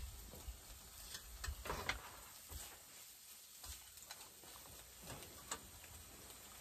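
Quiet, irregular scraping and tapping of a cooking utensil against a frying pan as fried rice is stirred.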